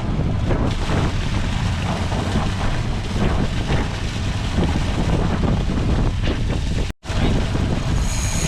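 Wind buffeting the microphone on a boat at sea, a dense low rumble with water noise beneath it. The sound cuts out for an instant about seven seconds in.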